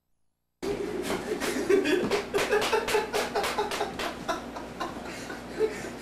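People laughing in quick bursts, starting abruptly about half a second in.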